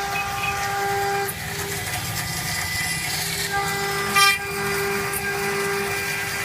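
CNC router spindle milling aluminium plate: a steady whine with cutting noise, and a brief louder screech about four seconds in.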